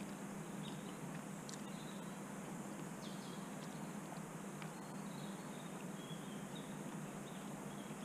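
Faint outdoor ambience: a steady low hum with a few short, high chirps and small clicks.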